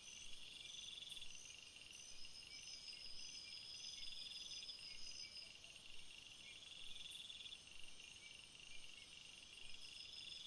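Faint chorus of crickets and other insects: trills of about a second recur every few seconds over a steady run of short, regular chirps.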